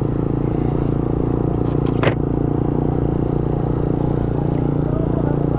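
Motorcycle engine running steadily at low road speed, heard from the rider's seat, with one sharp click about two seconds in.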